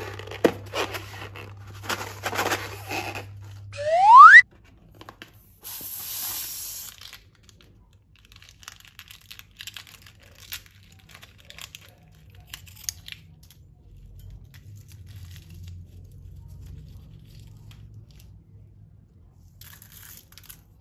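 Crinkling and tearing as filled balloons are handled and cut open for slime-making. A short, loud whistle rises in pitch about four seconds in, a brief hiss follows, and faint crackling runs on after.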